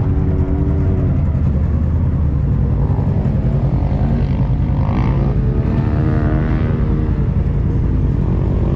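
Off-road engines idling: a side-by-side and dirt bikes make a steady low rumble. Through the middle, one engine's pitch rises and falls a few times as it is revved lightly.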